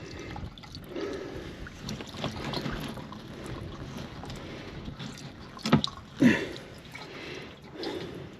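Used engine oil draining from the oil pan and trickling into a drain pan, with wind on the microphone. Two sharp knocks sound about five and a half and six seconds in.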